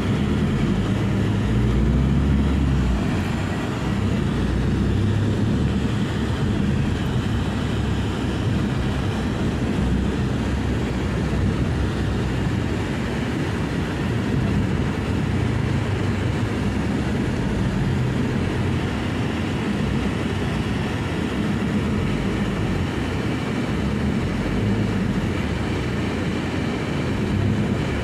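Steady low engine and road rumble heard from inside a passenger van riding in traffic.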